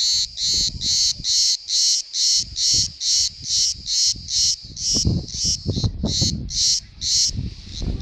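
Cicada singing: a loud, high, pulsing buzz repeated about twice a second, which stops near the end. Wind rumble on the microphone lies underneath in the second half.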